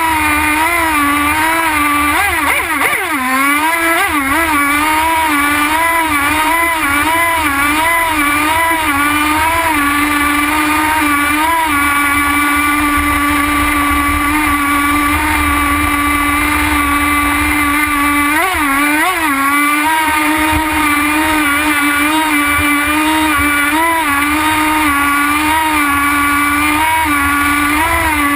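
Nitro glow engine of a radio-controlled model boat running at speed, heard from on board. One steady engine tone whose pitch wavers up and down throughout, with short dips about three seconds in and again about two-thirds of the way through.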